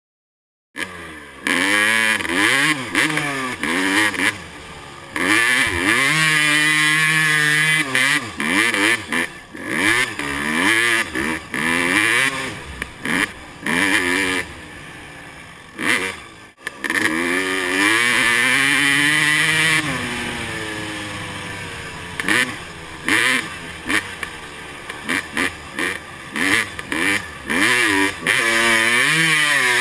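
Two-stroke single-cylinder engine of a 2008 Suzuki RM250 motocross bike being ridden hard in sand, heard from the rider's helmet. It starts after a brief silence, then revs up and drops back again and again as the rider works the throttle and shifts.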